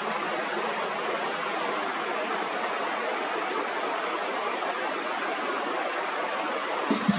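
Steady, even hiss of rushing noise with no distinct events.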